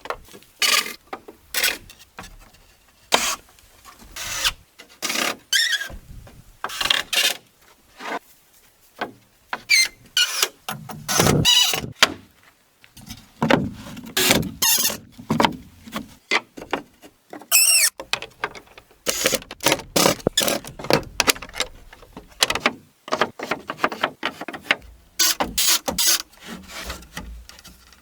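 Hand-tool work on wood: an irregular series of knocks, cuts and scrapes, with squeaks and one clear squeal about two-thirds of the way through.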